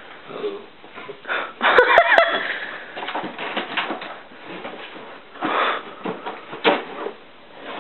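A wheaten Scottish terrier sniffing and pawing at a cardboard box to get a treat out: irregular scraping, rustling and sniffing. The loudest moment is a short squeaky scrape about two seconds in, and another burst of scraping comes near the middle.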